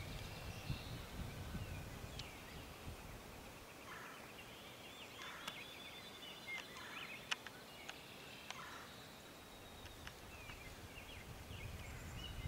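Faint wild turkey gobbling: four short rattling bursts a second or two apart, with small songbirds chirping now and then.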